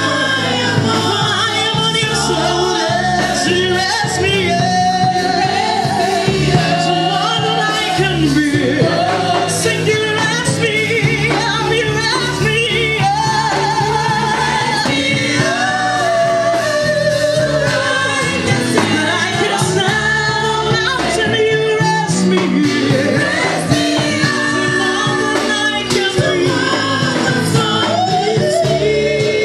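Women's gospel choir singing together into hand-held microphones over a steady low accompaniment.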